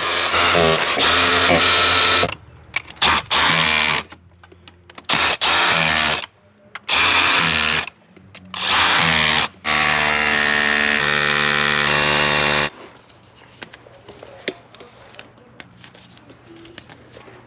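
Cordless power tool running in several bursts of one to three seconds, with steady whining tones that step in pitch, the longest burst the last; drilling or fastening into a stucco house wall.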